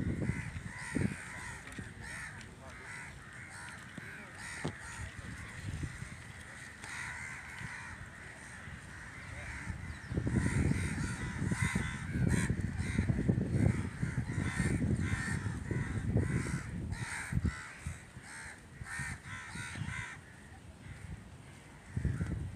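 Crows cawing over and over. Wind buffets the microphone with a low rumble through the middle stretch.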